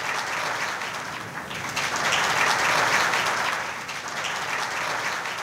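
Audience applauding, swelling to its fullest about two seconds in and then carrying on steadily.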